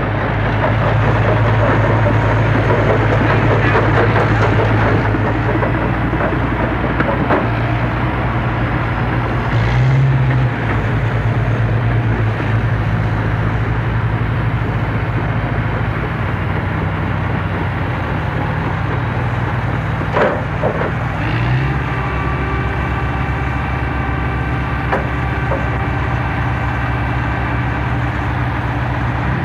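Trench excavator working: its engine runs steadily with mechanical noise over it, and the engine note steps up briefly twice, about a third and two-thirds of the way through, with a few faint knocks.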